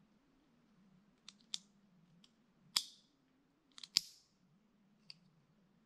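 A handful of short, sharp clicks and scrapes, the two loudest near the middle, as a bear banger cartridge is worked onto a flare launcher that is warped and does not fit easily.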